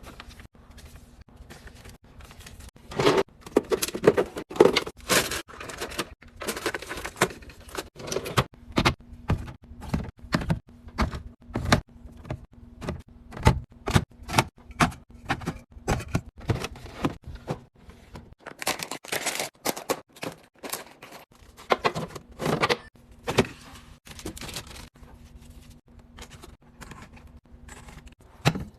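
Food containers and packaging handled while restocking a fridge and pantry: a long, irregular run of sharp clicks and knocks of items and lids being set in place, with stretches of rustling packaging.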